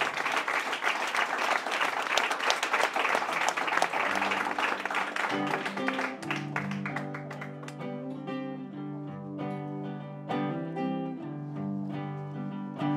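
Audience clapping that dies away over the first five seconds or so as an acoustic guitar begins a song's intro. The guitar then plays on alone in plucked notes and chords.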